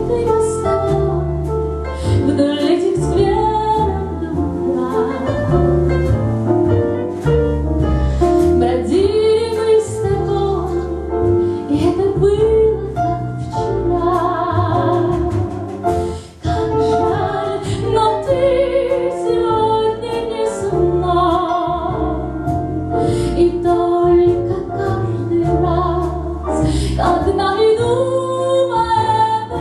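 A woman singing a pop song with vibrato over a bass line, piano and a steady beat.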